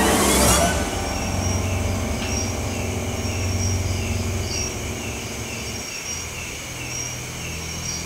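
Night insects, crickets, chirping in a steady repeating pattern. Under them runs a low rumbling hum, the loudest sound at first, which falls away about six seconds in.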